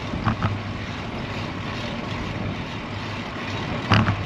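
Steady wind rush and road noise from riding a road bicycle, with a few brief knocks or bumps: two shortly after the start and a louder one near the end.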